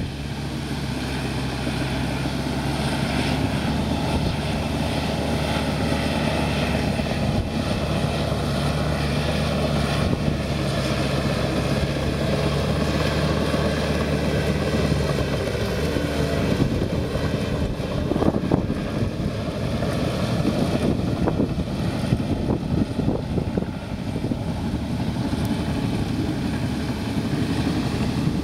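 Komatsu crawler dozer's diesel engine running steadily under load as it pushes ash and burnt debris. About halfway through the engine tone fades and gusty wind buffeting the microphone takes over.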